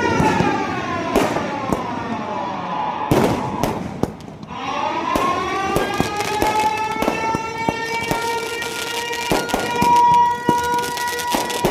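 Air-raid warning siren sounded for a civil-defence mock drill. Its wail falls in pitch, dips about four seconds in, then winds back up and holds a steady high tone. Many sharp cracks and bangs are heard throughout.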